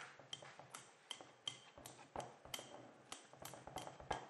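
Metal fork mashing boiled potatoes in a cut-glass bowl, clicking against the glass in an even rhythm of about three taps a second.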